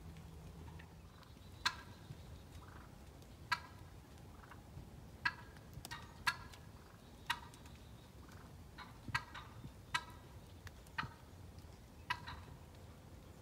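Turkey calling: about ten short, sharp single notes spaced irregularly a second or two apart.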